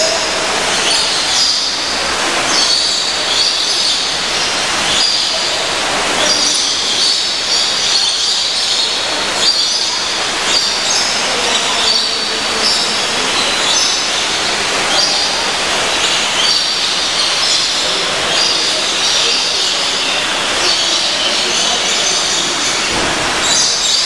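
A dense chorus of many small birds chirping in short, high squeaky calls, over a steady rushing background noise.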